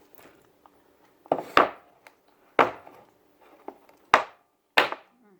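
Five sharp knocks of an eating utensil striking a dish or cutting board, spread over about three and a half seconds, the first two close together.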